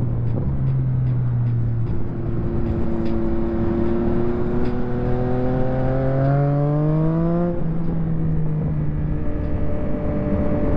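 Yamaha MT-09 SP's inline three-cylinder engine through a full Akrapovic race exhaust, pulling hard with its pitch rising steadily for about five seconds, then dropping suddenly and running on steadily at a lower pitch, over wind and road noise.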